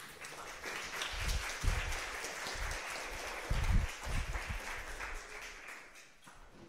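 Audience applauding: a dense patter of clapping that swells in the first second, holds, and dies away about six seconds in, with a few low thumps in the middle.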